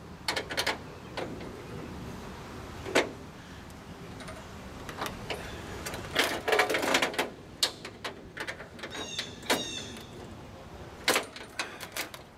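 Hand tools clinking and knocking on metal air-line fittings under a semi truck's diamond-plate deck: a scattering of sharp taps and clicks, with a dense cluster around the middle.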